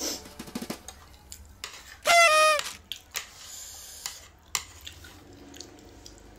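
Metal spoon and chopsticks clinking and scraping against ceramic plates while noodles are mixed and picked up, with a short, loud squeak about two seconds in that drops slightly in pitch.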